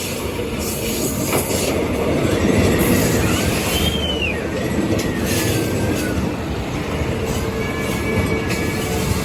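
A train running on the rails at a station with a steady rumble. Thin, high wheel squeals glide up and down about a third of the way in, and again near the end.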